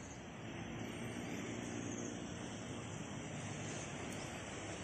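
A distant engine droning over steady outdoor background noise.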